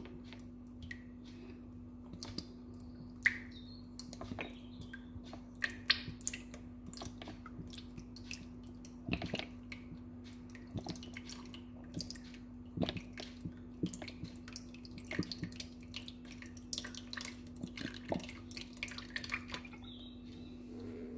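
Olive oil heating in a cooking pot, giving scattered small pops and crackles that grow more frequent, over a steady low hum.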